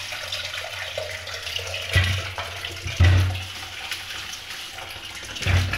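Tap water running steadily into an aluminium pressure cooker in a steel sink, with a plastic bag of potatoes rustling as it is handled. Three dull thumps, about two, three and five and a half seconds in, the loudest around three seconds in.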